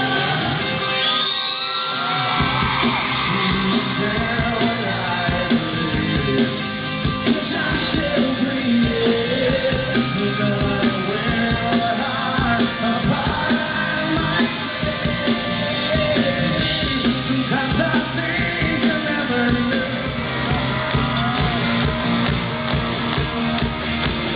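Live rock band performance: a male lead vocal sings over electric guitars, bass and drums, with shouts mixed in.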